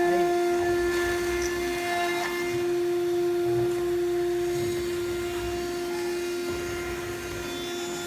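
CNC router spindle motor running at speed with a steady high whine.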